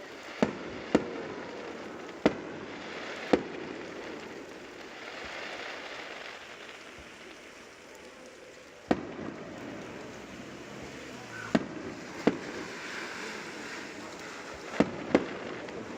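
Fireworks bursting overhead: about nine sharp bangs at irregular intervals, several close together in pairs, over a steady background rumble.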